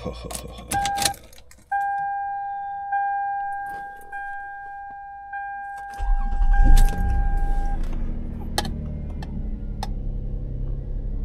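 Keys jangling and clicking, then a car's warning chime dinging about once every second and a bit. About six seconds in the engine cranks and starts, and the chime stops soon after as the engine settles into a steady idle.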